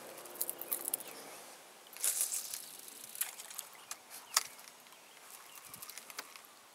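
Scattered small sharp clicks and a brief rustle about two seconds in, over faint outdoor background hiss.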